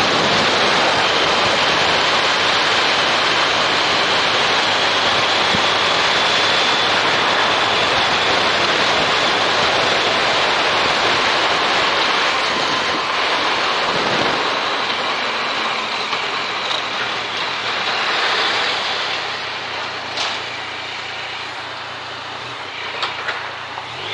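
Wind noise rushing over the microphone of a riding motorcycle, with the Yamaha MT-09 Tracer's three-cylinder engine running underneath. About halfway through the wind eases as the bike slows, and the engine hum stands out more towards the end.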